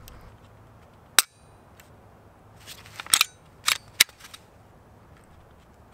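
Shadow Systems MR920 pistol being dry-fired: one sharp click of the trigger breaking about a second in, then a group of smaller clicks between three and four seconds as the gun is handled and fired again.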